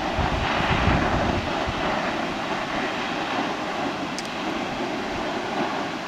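Steady rushing roar of a tall waterfall plunging into a gorge, with gusts of wind buffeting the microphone in the first second or so.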